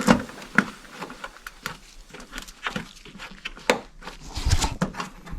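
Irregular sharp plastic clicks and knocks as push-in trim clips and bumper fasteners are handled and pressed into place, about a dozen over a few seconds.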